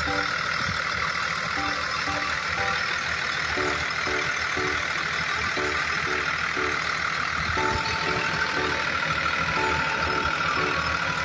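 Steady truck-engine-like vehicle sound with a simple tune of short notes playing over it; the tune pauses for a few seconds in the middle and comes back.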